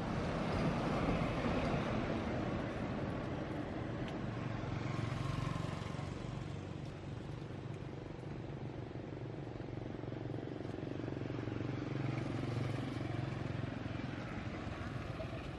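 A motor vehicle's engine running: a steady low drone that grows a little louder at the start and again about three quarters of the way through.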